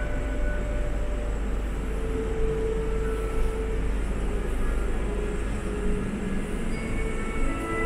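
Steady mechanical rumble of the Euro-Tower's observation cabin descending its tower, with faint music holding long notes over it.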